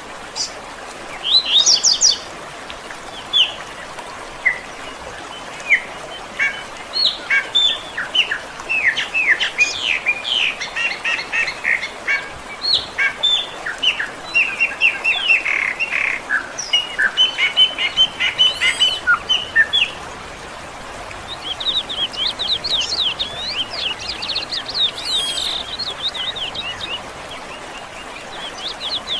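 Several songbirds chirping and singing over a steady background hiss, with rapid runs of short high chirps and a faster trill near the end.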